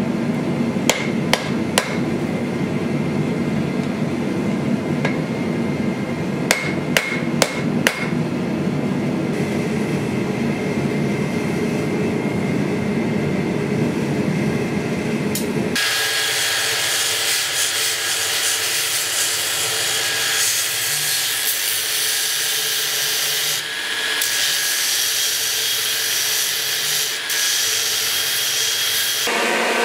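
A hammer strikes red-hot steel on an anvil, about eight sharp ringing blows scattered through the first eight seconds over a steady low roar. About sixteen seconds in, the sound changes abruptly to a belt grinder grinding the steel sword guard, a steady hiss that lasts to the end.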